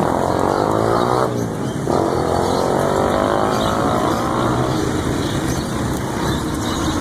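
A vehicle engine running close by over steady street noise. Its pitch shifts in two stretches, with a short break a little over a second in, and it fades out after about four and a half seconds.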